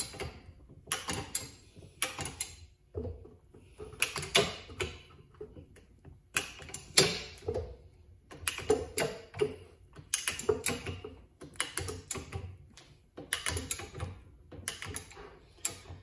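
Hilmor tube bender with its reverse bending attachment being worked to bend copper tubing: irregular clusters of sharp metal clicks and clacks every second or so.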